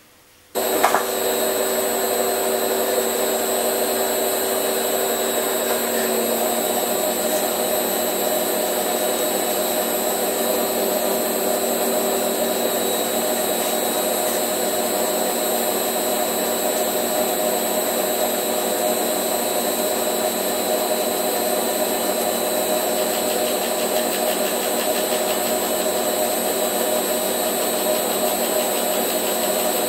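Gear-hobbing setup on a Rivett 608 lathe starting up about half a second in and then running steadily: the hob spinning on the milling-attachment spindle and cutting a 15-tooth gear in a Delrin blank while a stepper motor turns the blank. A steady machine whine with several fixed tones, which shifts slightly about six seconds in.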